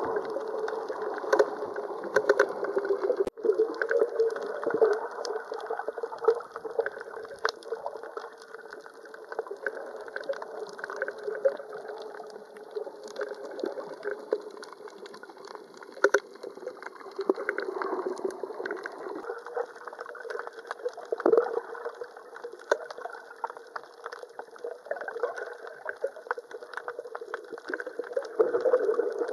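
Muffled underwater sound picked up by a camera held beneath the surface while snorkeling: a steady wash of moving water, dotted throughout with short sharp clicks and crackles.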